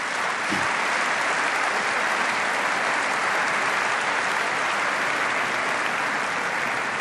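Applause from a large seated assembly: many people clapping at once in a dense, steady patter.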